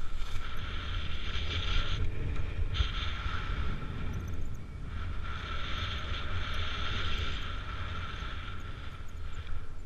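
Wind buffeting the microphone with a steady low rumble. Over it a rushing hiss with a faint high whistle comes and goes in gusts, dropping away briefly twice.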